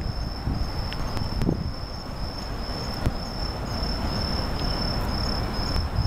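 Bell crickets (suzumushi) singing: a steady series of short, high ringing chirps, about two a second, over a steady low rumble.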